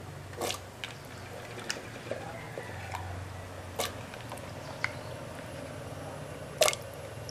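Pieces of cut vegetable dropped by hand into a pot of thin sambar liquid: scattered small splashes and clicks, with a louder plop near the end, over a low steady hum.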